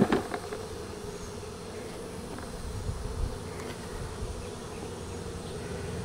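Many honeybees buzzing steadily around an opened hive, with a light knock at the very start.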